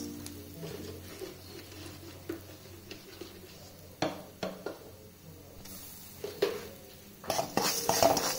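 Wooden spatula stirring and scraping urad dal and black peppercorns across a metal pan as they fry in a little oil. There are a few separate scrapes and clicks, then quick continuous stirring near the end.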